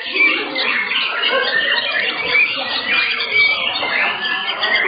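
Several white-rumped shamas singing at once, a dense, unbroken tangle of fast whistles and chirps.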